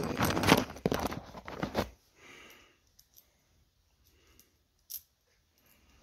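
Hands handling small hardware and packaging: crinkling and rustling with quick clicks for about two seconds, then near quiet with a few faint ticks and one sharp click near the end.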